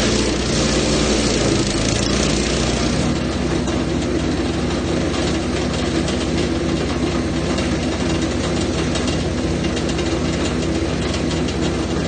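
Jansen GTS-1500E wood chipper shredding eucalyptus branches: a burst of noisy chipping for the first three seconds or so, then the machine runs on steadily with no load.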